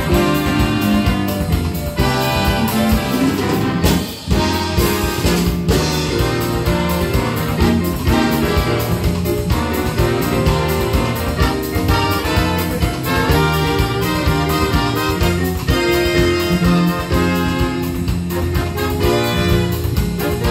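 Live big band playing jazz: a saxophone section and trumpets over electric bass and drum kit, with a short break about four seconds in before the full band comes back in.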